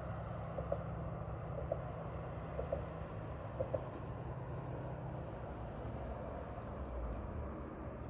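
The remote-controlled Pontiac Grand Am's engine running steadily as the car drives across the field, a low hum heard from a distance. Brief faint tones sound about once a second during the first few seconds.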